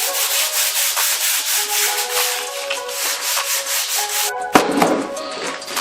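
Quick, even back-and-forth scrubbing of a metal dash panel with a scuff pad and SEM cleaning soap, prepping it for paint. There is a brief knock about four and a half seconds in.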